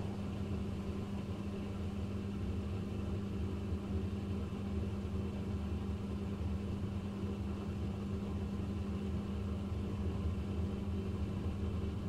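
Dishwasher running: a steady motor hum over a low rumble.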